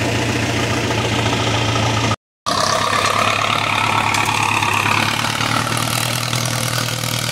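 John Deere 440 cable skidder's diesel engine running steadily at low revs. The sound drops out completely for a moment about two seconds in, then the engine carries on.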